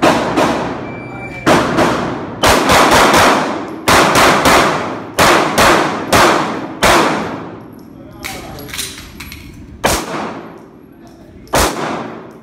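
Handgun fired in quick pairs and rapid strings of shots, about twenty in all, each shot ringing out with a long echo off the walls of an indoor range; the shots come thickest in the first seven seconds, then a few more spaced out toward the end.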